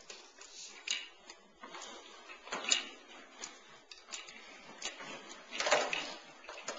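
Plastic baby push walker rolling and clattering over a hardwood floor, with irregular knocks as it is pushed and bumped along; the loudest clatter comes near the end.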